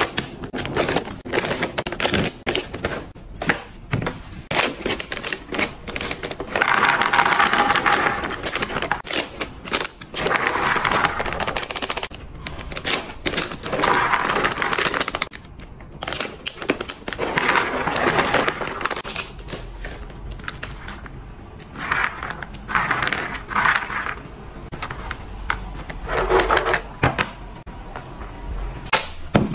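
Plastic pouch crinkling, then small dry cat food pellets poured onto a plastic tray, rattling and clattering in several pours of a second or two each, with scattered clicks as the pellets are pushed around by hand.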